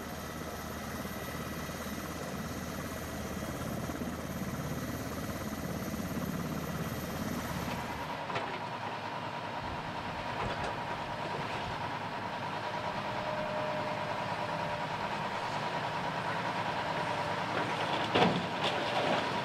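A low engine drone, then, from about eight seconds in, a Caterpillar hydraulic excavator's diesel engine running steadily with a thin whine. A loud clank comes near the end as the bucket loads a dump truck.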